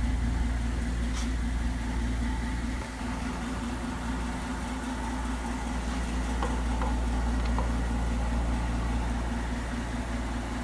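An engine idling steadily with an even low pulse, joined by a few light clicks.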